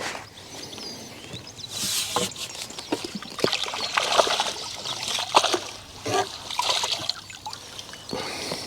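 Water splashing and trickling in several short surges, with small clicks and knocks among them, from a fish being handled in and out of the water on a pole-fishing line.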